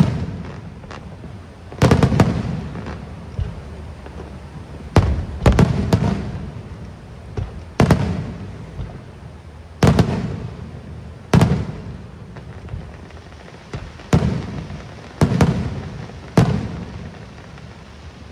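Aerial fireworks shells bursting, a sharp boom every one to two seconds, some in quick pairs, each trailing off in a rumbling echo.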